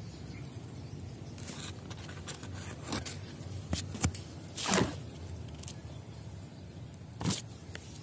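Leaves and twigs of a sea hibiscus (waru) tree rustling and scraping as its branches are gripped and pushed aside by hand. Irregular short scrapes, with a louder brush about halfway through.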